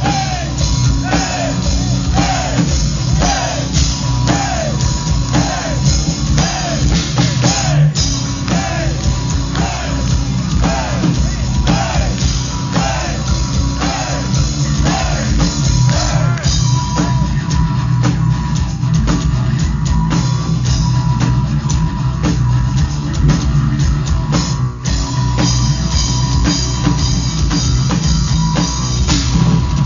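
Live folk metal band playing loud, heard from the crowd: drum kit and distorted electric guitar. A short falling phrase repeats about every two-thirds of a second through the first half.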